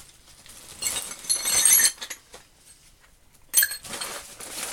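Steel reamers and end mills clinking against each other as they are handled: a run of clinks about a second in, then one sharp, ringing clink near the end.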